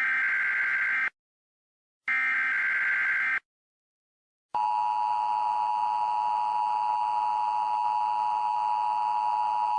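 Emergency Alert System tones: two short warbling bursts of SAME header data, each about a second long with a second of silence between. About 4.5 seconds in, the steady two-tone EAS attention signal starts and holds.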